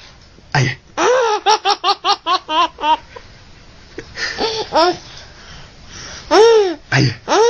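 Infant laughing hard: a quick run of short, pitched laugh pulses about a second in, a few more around the middle, and a longer high-pitched laugh near the end.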